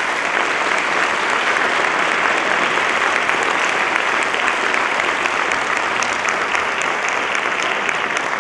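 Audience applauding steadily at the close of a lecture, a dense patter of many hands clapping.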